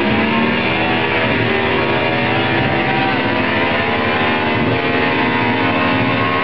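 Van engine running flat out at high, steady revs, a loud continuous drone whose pitch wavers slightly.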